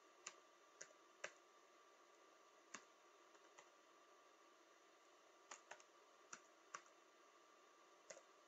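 Faint computer-keyboard keystrokes typing in a short code: about a dozen single clicks at irregular intervals, some in quick pairs.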